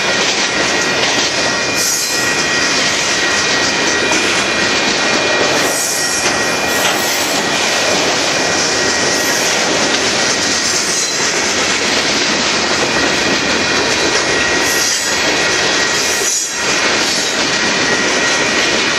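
Freight cars of a Union Pacific manifest train rolling past close by: loud, steady noise of steel wheels on the rails with a faint clack every few seconds, and a thin, steady high squeal of wheels above it.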